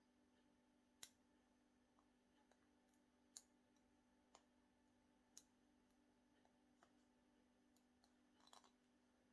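Faint metallic clicks of a lock pick and tension wrench working the pins inside a six-pin Abus 82/90 brass shutter padlock during single pin picking. Scattered light clicks come roughly a second apart, with a short run of quick ticks near the end.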